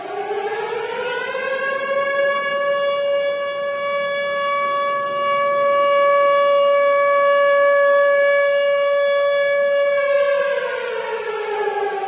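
Tornado warning siren wailing: its pitch rises over the first couple of seconds, holds a steady loud tone, then starts winding down about ten seconds in.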